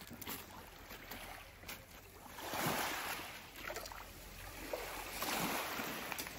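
Small sea waves washing onto the shore, with two surges of water about two and a half seconds apart.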